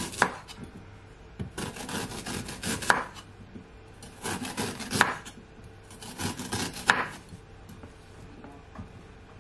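Kitchen knife slicing through fresh ginger root on a wooden cutting board: four slow cuts about two seconds apart, each a rasping stroke through the fibrous root that ends in a knock of the blade on the board. Quieter for the last couple of seconds.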